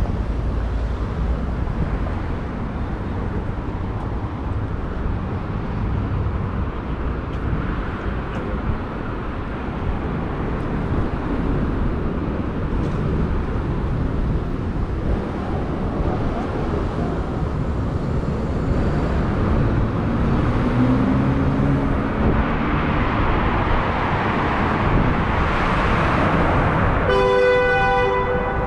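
Steady road traffic noise, with a vehicle passing louder toward the end. A car horn honks once for about a second and a half just before the end.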